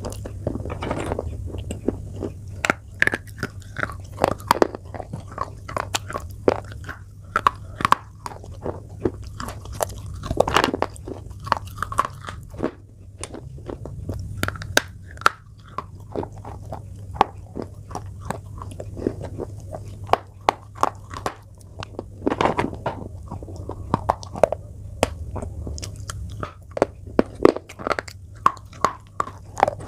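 Sticks of school chalk being bitten and chewed: a steady run of irregular, sharp crunches and crackles as the chalk breaks and grinds between the teeth.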